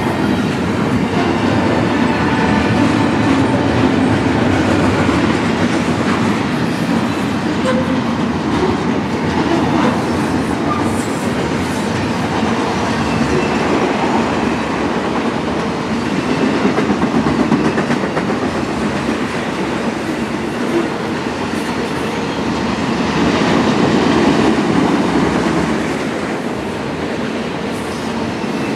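Freight cars rolling past close by: a steady, loud noise of steel wheels running on the rails, swelling and easing a little. Double-stack container well cars give way to autorack cars.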